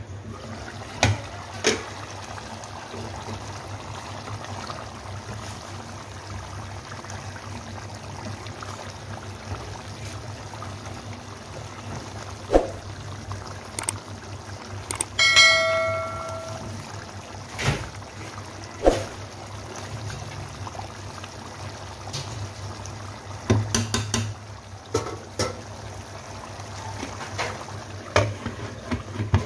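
Chicken karahi simmering in its tomato gravy, a steady bubbling sizzle, with scattered knocks of a spatula and glass lid against the pan. Near the middle there is one brief ringing clink.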